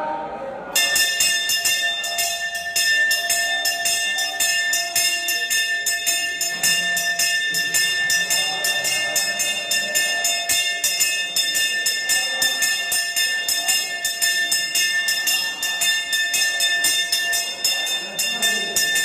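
Brass temple hand bell (ghanta) rung rapidly and without a break, its clapper striking many times a second over a steady ringing tone. It starts about a second in and accompanies the lamp-waving arati offering.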